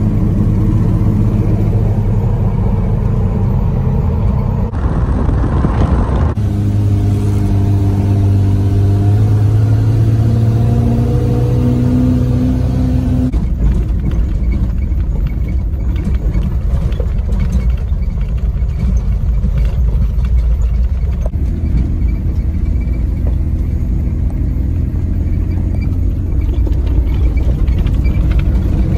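Jeep Cherokee XJ on 35-inch mud-terrain tires heard from inside the cab: engine running under way, its pitch climbing steadily as it accelerates through a gear from about seven to thirteen seconds in. After that the engine settles and a rougher low rumble takes over as it rolls onto gravel.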